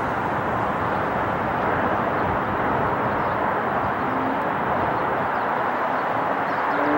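Jet engine noise from a Boeing 747 freighter's four engines: a steady, even rush that holds at one level throughout.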